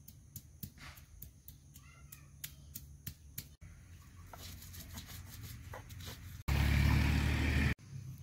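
Stone roller on a flat stone grinding slab (sil-batta): a quick run of sharp taps as spices are pounded, then softer scraping. A much louder rough noise lasting about a second comes near the end.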